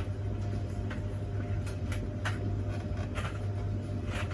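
Scattered light clicks and knocks of bolts and tools being handled and searched through, over a steady low hum.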